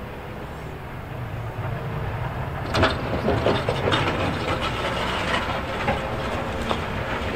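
Wheel loader plowing snow: its diesel engine runs steadily, and about three seconds in a loud rattling, scraping clatter of steel on the frozen surface sets in and keeps going.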